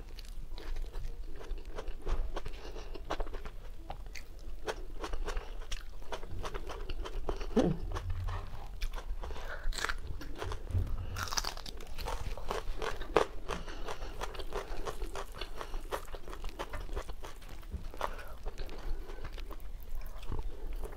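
A person biting and chewing roast chicken and raw vegetables, with many small crisp crunches.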